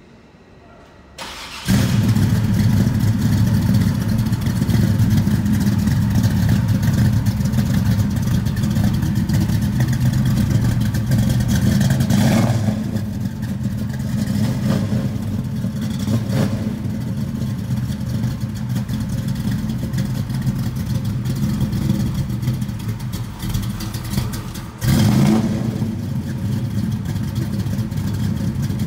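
1969 Camaro's 383 stroker small-block V8 catches after a brief crank about two seconds in, then runs loudly at idle through its exhaust. The throttle is blipped briefly three times, the last near the end giving a short louder rev.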